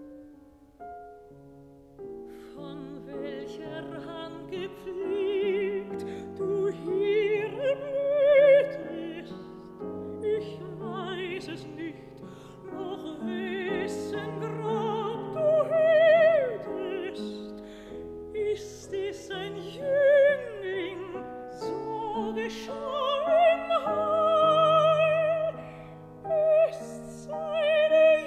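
A classical soprano sings a German art song (lied) with wide vibrato, accompanied by piano. For the first couple of seconds the piano plays alone, then the voice enters.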